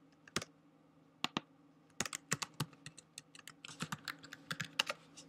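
Computer keyboard typing: a few separate key clicks, then about two seconds in a quick, uneven run of keystrokes as a password is typed in.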